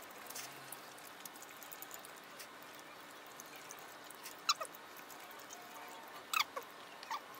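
Quiet mukbang eating sounds: faint clicks of forks and spoons against bowls and a steel tray, with a few short squeaks that fall in pitch about halfway through and again near the end.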